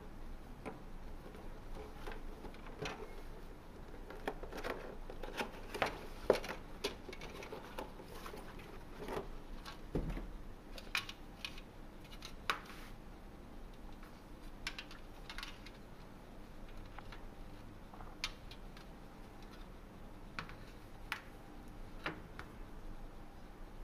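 Cardboard box and plastic laptop cooling pad being handled: scattered light taps, scrapes and rustles, with a dull thump about ten seconds in.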